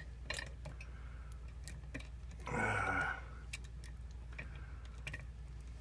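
Small, scattered metal clicks and taps from handling an Abus euro cylinder lock and lockpicking tools, with a brief louder rustle about two and a half seconds in, over a steady low hum.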